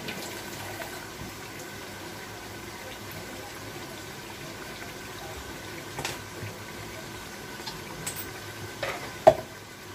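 Kitchen tap water running into and swilling round a steel mixer-grinder jar as it is rinsed at the sink, over a faint sizzle from the frying pot. A sharp metal clank near the end.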